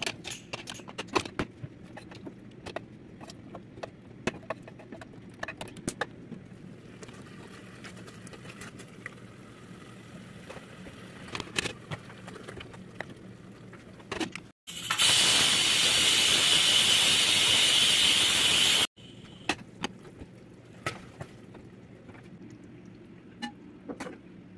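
Aluminium pots, lids and a utensil clinking and clicking on a gas stove over a low steady hum. About halfway through, a loud even hiss starts suddenly, lasts about four seconds and cuts off sharply.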